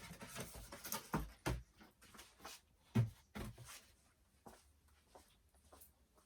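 Handling noises of doll packaging and scissors: rustles, clicks and knocks, the loudest knock about three seconds in, growing fainter after about four seconds.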